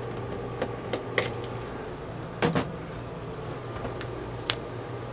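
A few light taps and knocks from hands working tape along the edge of the RV skylight frame, the loudest a quick double knock about two and a half seconds in, over a low steady hum.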